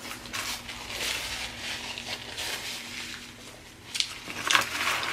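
Close-miked chewing of a sub sandwich: irregular wet, crackly mouth sounds with a few sharper smacks about four seconds in.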